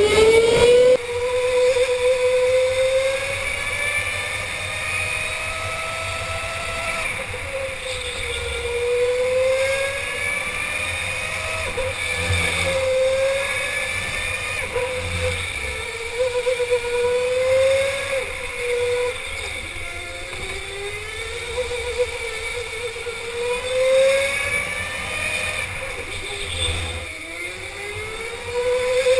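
Electric go-kart motor whining as the kart laps an indoor track. Its pitch rises as the kart accelerates down each straight, then drops as it slows for the next corner, over and over.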